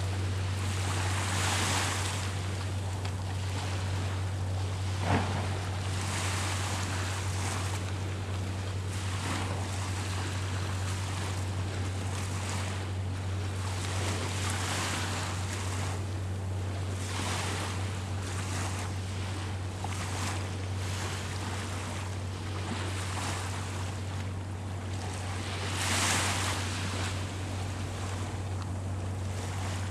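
Small waves washing on the shore with wind on the microphone: a steady rushing hiss that swells every second or two, loudest near the start and near the end, over a steady low hum. A single sharp click about five seconds in.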